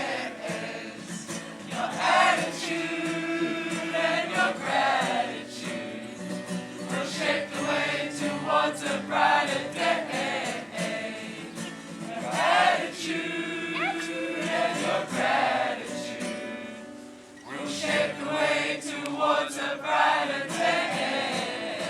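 A group of voices singing together in held, swelling phrases, like a choir.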